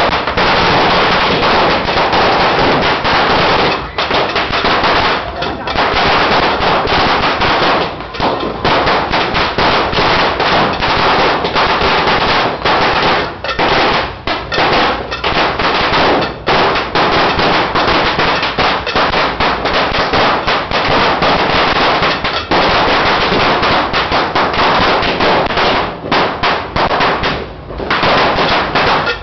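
A Judas belt, a long string of a thousand small firecrackers, going off in a rapid, nearly unbroken rattle of bangs, with a few brief lulls.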